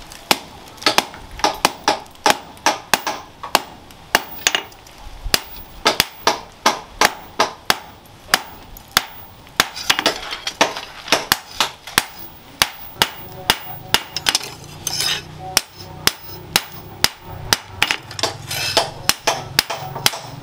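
Hand hammer forging a red-hot leaf-spring steel blade on a steel post anvil: a steady run of sharp metallic blows, about two to three a second.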